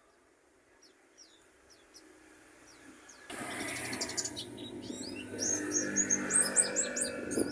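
White-eye (pleci) singing in quick, high, thin chirps, faint at first and loud and rapid in the second half. A low hum and noise cuts in suddenly about three seconds in and runs under the song.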